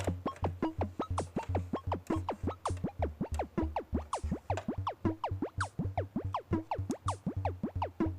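Electronic background music: quick, repeating synth blips that each drop in pitch, over a pulsing bass beat.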